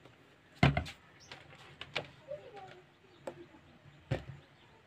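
Handling clicks and two low thumps, the first about half a second in and the second near the end, as an Intex home theatre unit is plugged into the mains and switched on.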